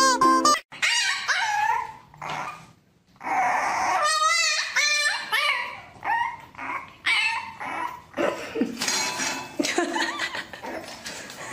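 Puppy whining and yipping in a string of high cries that rise and fall, with a quick run of short yips about four seconds in. Plucked-string music cuts off just after the start.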